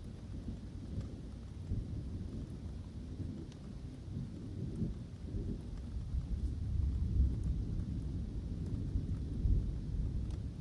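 Thunder rumbling low and growing louder toward the end, over light rain with scattered drops ticking.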